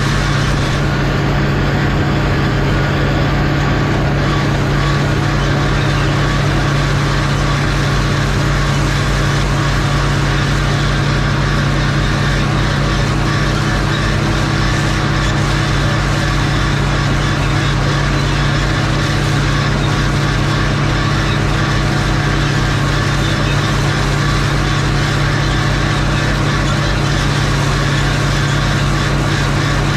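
Tractor engine running steadily at constant speed, a loud even drone with a strong low hum.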